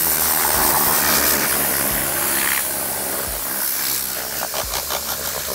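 Tornador compressed-air blowout tool blasting air, a steady rushing hiss as it blows dust out of a truck's interior door panel.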